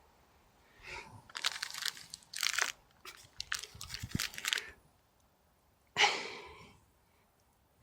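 Crinkling and rustling handling noise in several quick bunches, then one sharper crackle about six seconds in that dies away.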